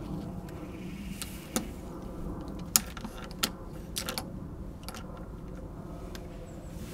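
Hard plastic of a Playmobil toy motorcycle clicking and cracking as a heated knife is pressed through it and the toy shifts on the table: a few sharp clicks, the loudest nearly three seconds in, over a low steady hum.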